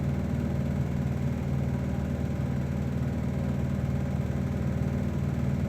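A steady low mechanical hum that does not change, with no other sound standing out.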